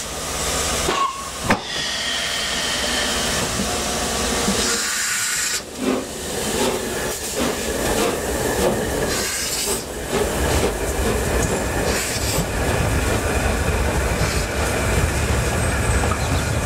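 Steam locomotive 60163 Tornado, a Peppercorn A1 Pacific, with a steady hiss of steam over the rumble of the train on the rails. The low rumble grows stronger in the second half, after a few brief dips in the sound early on.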